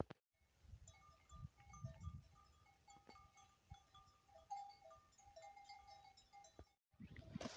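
Faint sound of a grazing goat herd: scattered short ringing notes and bleats, with some low wind rumble on the microphone.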